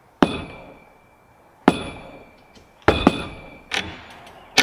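Hammer blows, about five sharp strikes at uneven intervals, each leaving a short metallic ring.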